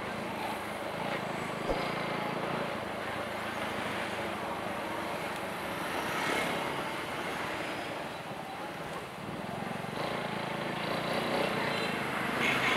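Street traffic noise: a steady hiss of tyres on wet pavement mixed with the engines of passing vehicles.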